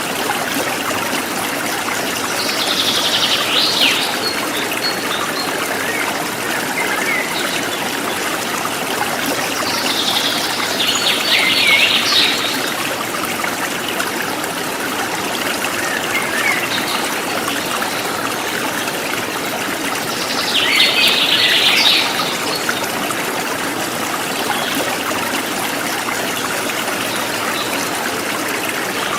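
A forest stream running and trickling steadily, with a songbird singing a short phrase three times, roughly every nine seconds.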